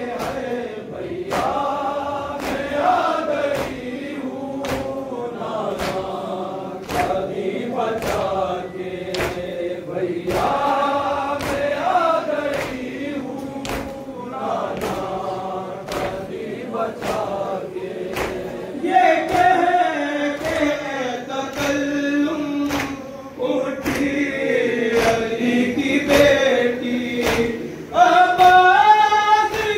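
Noha, a Shia mourning lament, chanted by several voices together, kept in time by steady strikes of matam (chest-beating), about four every three seconds.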